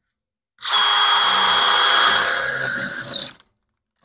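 Cordless drill spinning a cobalt step drill bit at high speed, cutting into sheet metal. The sound starts about half a second in, runs steadily with a high whine, and stops suddenly after about three seconds when the drill is let off.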